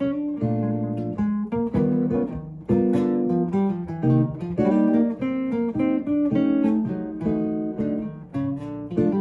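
Steel-string acoustic guitar playing jazz, a steady run of plucked notes and chords.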